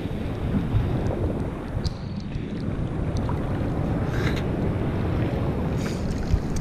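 Steady wind noise rumbling on the microphone over the wash of ocean surf.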